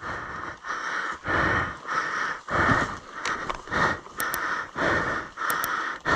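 A person breathing hard and fast, roughly two heavy breaths a second, each a rush of air: a rider out of breath after exhausting effort.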